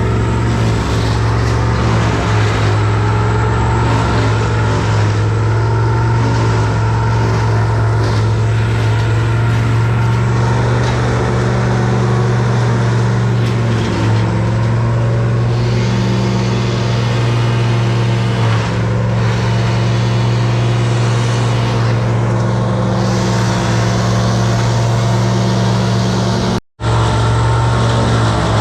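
An engine running steadily at an even speed, a low hum with a haze of noise over it; the sound cuts out for an instant near the end.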